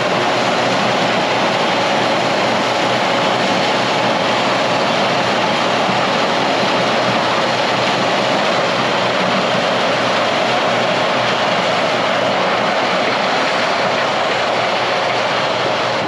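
Large diesel farm machinery, a combine harvester with a tractor close by, running steadily: a loud, constant mechanical rush with no change in pitch.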